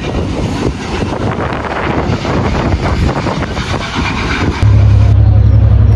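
A train running by with a rough, rattling noise. About four and a half seconds in, the sound switches abruptly to a louder, steady low drone.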